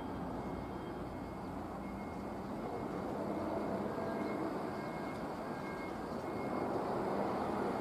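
Tobu 8000-series electric commuter train running along the track, a steady rumble of wheels and running gear that grows a little louder as the train draws nearer.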